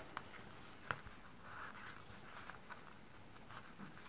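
Faint, scattered light clicks and a soft paper rustle from small jewellery pliers working a tiny metal jump ring through an eyelet in a paper page. The clearest click comes about a second in.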